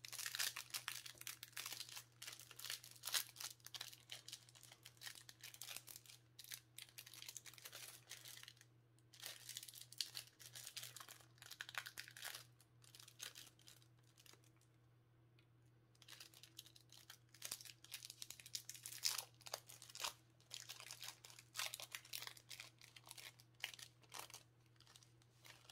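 Magic: The Gathering foil trading cards being handled and slid against one another, giving faint rustling and crinkling in short, irregular strokes that pause for a few seconds about halfway through. A low steady hum runs underneath.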